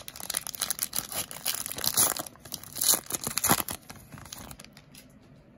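Baseball card pack wrapper being torn open and crinkled by hand: a run of crackling rustles, loudest about two and three and a half seconds in, dying away near the end.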